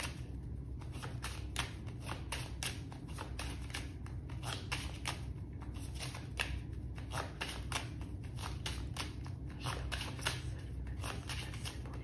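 A deck of oracle cards being shuffled by hand, cards slid from one hand onto the other: a continual run of short, irregular card clicks and slaps, several a second.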